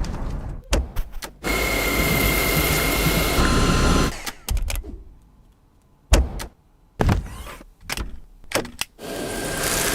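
Dyson vacuum cleaner motor running with a steady whine in short stretches, broken by pauses and several sharp clicks and knocks.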